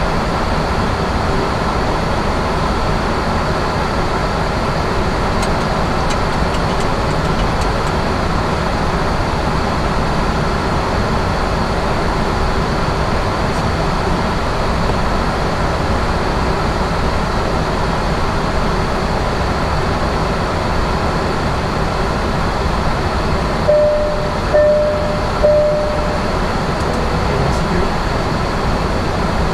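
Steady, loud in-flight noise in a Boeing 737-800 cockpit during descent. Near the end come three short, evenly spaced electronic beeps, a little under a second apart, followed by a fainter one.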